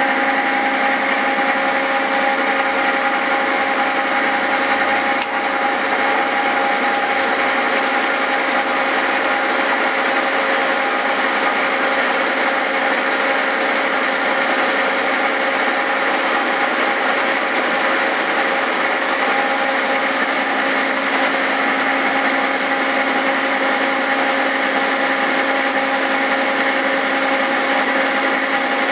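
Horizontal-spindle Cincinnati milling machine running steadily while its form cutter mills a spline into a 4340 steel axle shaft: a loud, even machine hum with a steady cutting rasp.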